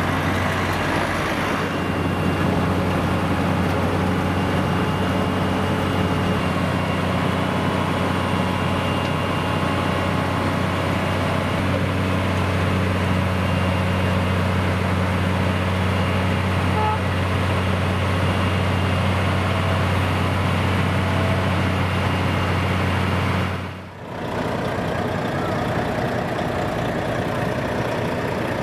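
Heavy vehicle engine running steadily at a constant pitch, with a brief dip about four seconds before the end.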